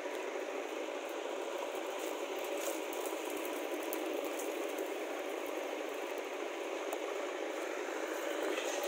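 Steady mechanical whirring with light rattling and scattered small clicks.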